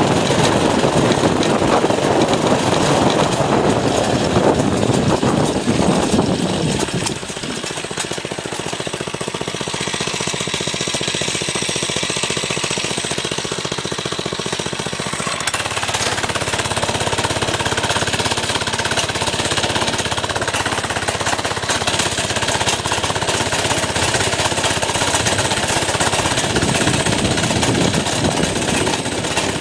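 A mini bike's small engine running as it rides a bumpy grass trail, heard from a helmet camera with rattling and wind noise. About seven seconds in the engine note drops lower and quieter, then picks up again around fifteen seconds in.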